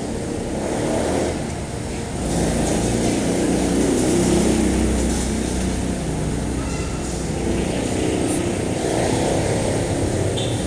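Street traffic: a motor vehicle's low engine rumble that swells about two seconds in, is loudest around the middle, then eases off.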